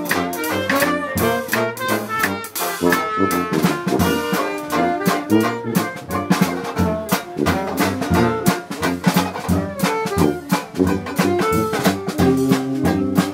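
Live Dixieland jazz band playing a lively tune: trombone and tuba out front, with a banjo strumming a steady beat.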